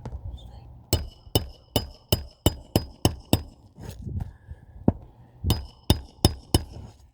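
Hammer striking metal in two quick runs of ringing taps, about eight blows, a brief pause with a few lighter knocks, then four more.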